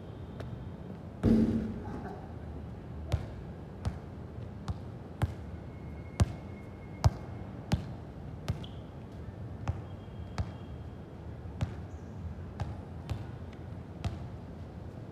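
A series of sharp knocks and thumps at uneven intervals, roughly one a second. A louder, longer thud comes about a second in.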